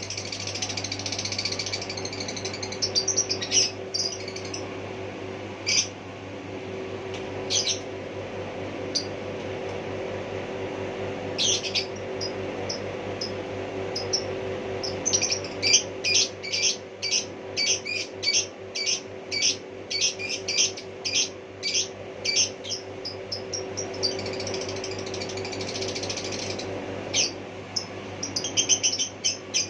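A small bird giving short, sharp chirps: a few scattered calls, then a quick regular run of chirps about halfway through, and more near the end, over a steady low hum.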